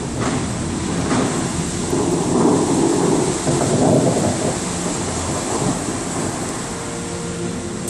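Bellagio fountain jets firing across the lake: two sudden bursts in the first second, then the rushing noise of water shooting up and falling back like heavy rain. The noise is loudest in the middle and eases off near the end.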